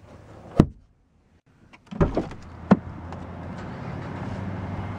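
A sharp click, then a low thump and a couple of clicks as the Hyundai Genesis Coupe's door is unlatched and pushed open, followed by a steady background noise that grows louder as the door opens.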